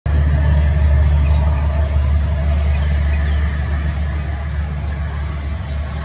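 A steady low engine hum, like a motor vehicle idling, with a few faint high bird chirps over it.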